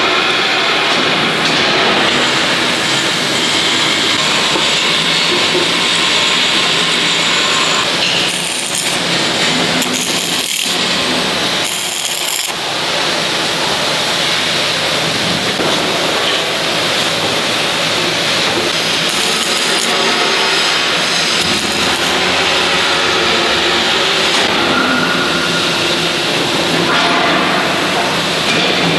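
Wire-feed arc welding on the steel plates of an excavator bucket: a steady hiss, with a few brief louder bursts about eight to twelve seconds in.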